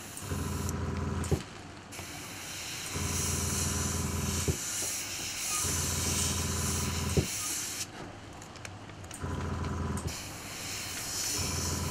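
Iwata airbrush spraying paint: a steady hiss of air in long spells with short breaks, under a low motor hum that comes and goes in spells of a second or so, several ending in a sharp click.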